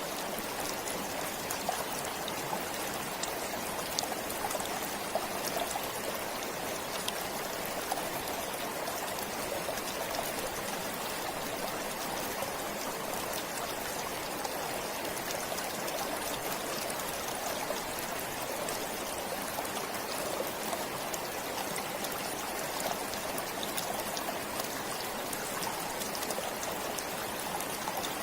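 Stream flowing steadily: a continuous rush of running water with fine trickling and small splashes throughout.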